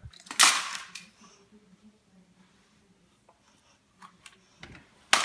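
Toys clattering briefly as they are put away about half a second in, then a few light clicks and a sharp knock near the end.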